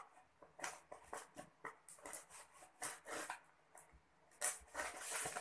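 A utility knife blade scraping and slicing at the tape of a tightly wrapped parcel: a string of short, uneven scratching strokes, the loudest about four and a half seconds in.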